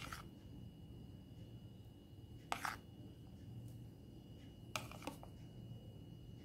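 A spoon clinking and scraping against a plate and bread in a few short clicks, once at the start, twice about two and a half seconds in and a few times near five seconds, as chopped vegetables are scooped and spread onto a slice of bread.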